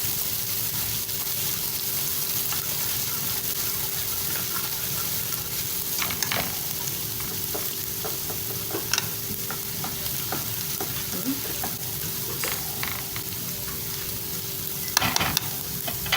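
Garlic and dried coriander frying in butter and ghee in a small pan, the garlic topping for molokhia: a steady sizzle, with a spoon clicking and scraping against the pan now and then and a louder flurry of it near the end.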